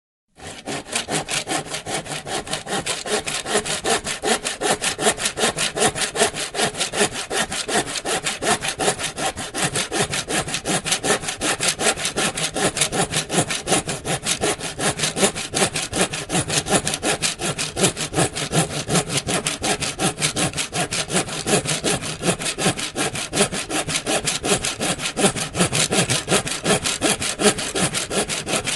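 Hand saw cutting through wood in a steady run of even back-and-forth strokes, the teeth rasping on every pass.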